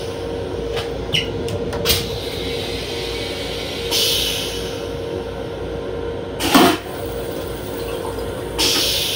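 Long Island Rail Road M7 railcar toilet flushing: hissing rinse-water sprays in the stainless bowl about four seconds in and again near the end, with a louder whoosh in between. Under it runs the railcar's steady hum.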